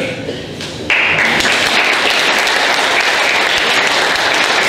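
Audience applauding: the clapping breaks out suddenly about a second in and carries on steadily.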